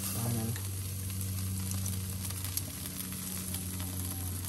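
Jerk chicken sizzling and crackling on the grate of a jerk pan over the fire, over a steady low hum.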